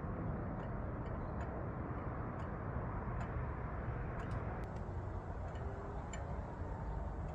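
Antique J. H. German two-weight grandfather clock ticking steadily, faint clicks over a steady background hiss.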